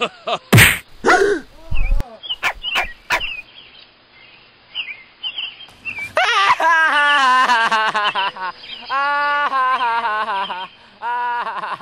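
Dog whining: three long, drawn-out whines in the second half. Several sharp knocks and short high yelps come in the first three seconds.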